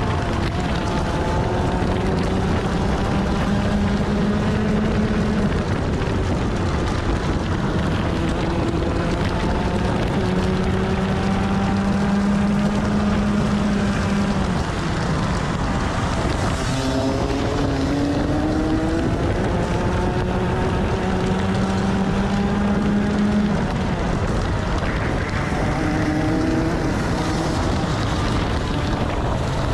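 Onboard sound of a Rotax 125cc two-stroke TaG kart engine at racing speed, its pitch climbing along the straights and dropping sharply under braking for corners, about every five to ten seconds. Wind buffets the microphone throughout.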